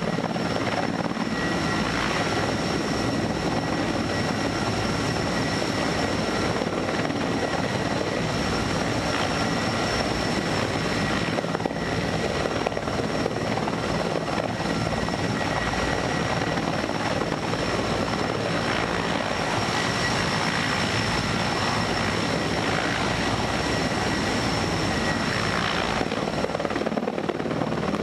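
Heavy-lift crane helicopter hovering, its rotor noise steady throughout, with a steady high whine over it, heard through the car's windshield.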